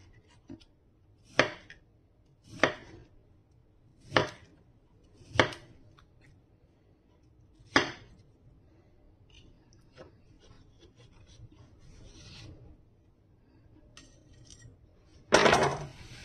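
Kitchen knife slicing through a red-fleshed dragon fruit and knocking down onto a bamboo cutting board: five sharp chops in the first eight seconds, spaced about one to two seconds apart. Faint handling sounds follow, then a louder, longer scrape near the end.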